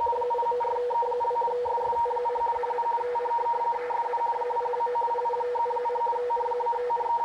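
ICOM IC-720A shortwave receiver playing an RTTY teleprinter signal: two steady tones about 450 Hz apart that switch back and forth rapidly in the warbling pattern of frequency-shift keying. The signal is a weather bulletin being decoded as it comes in.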